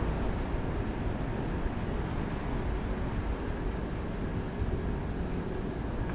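Steady rumbling noise of a bicycle rolling over a brick sidewalk, with wind on the action camera's microphone and a few faint ticks.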